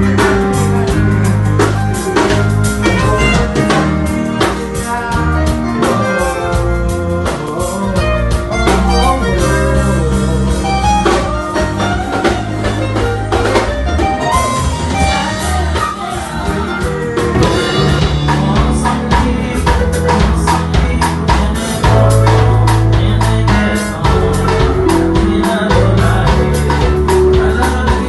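A recorded song: a singing voice over a steady beat of drums, bass and guitar.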